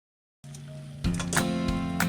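Background music starting about half a second in, a soft opening that turns louder about a second in with a steady beat.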